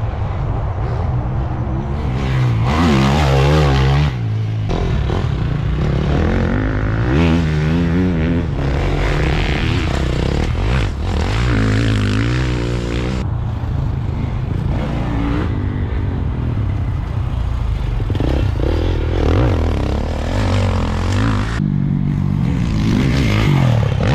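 Motocross bikes running and revving, the engine note rising and falling, in several short clips cut together.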